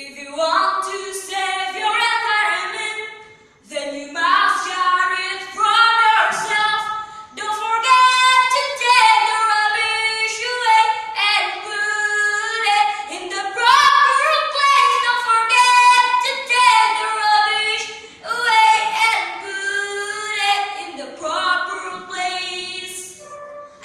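Unaccompanied singing voice, a melody sung in phrases with held notes and short breaths between them.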